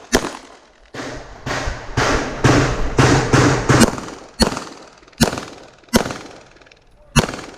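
A string of about a dozen pistol shots, about two a second for the first few seconds and then slowing to roughly one a second, each with a short echo tail.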